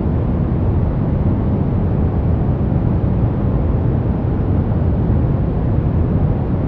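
Steady deep brown noise: a constant low rumbling hiss, strongest in the bass and dull in the highs, with no changes.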